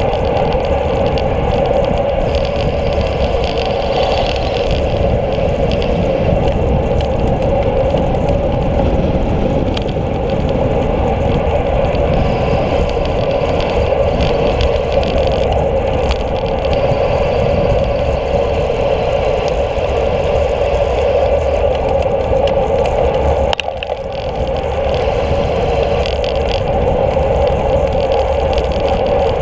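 Steady rush of wind and road noise on a handlebar-mounted action camera of a road bike riding over asphalt. About three-quarters of the way through there is a sharp click and the noise dips for a moment.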